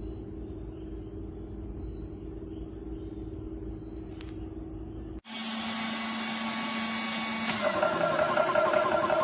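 TOAUTO A1X portable PCP high-pressure air compressor running with a steady hum. After an abrupt cut about five seconds in, a louder motor drone starts about two seconds later and builds toward the end.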